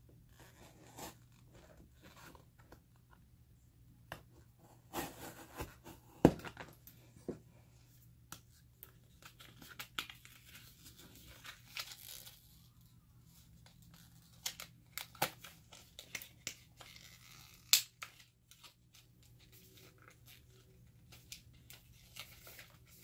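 Hands handling packaging and small items: scattered rustling, crinkling and tearing-like sounds with short clicks, the sharpest about six seconds in and again about three quarters of the way through.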